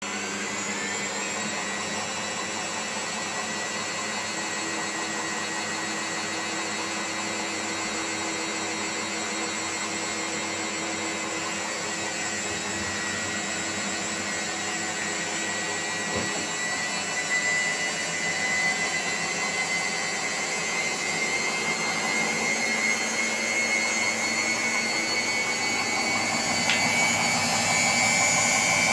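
Candy CS4 1061D1/2-07 washing machine spinning with freshly replaced drum bearings: a steady motor and drum whine that slowly rises in pitch and grows louder as the spin speeds up.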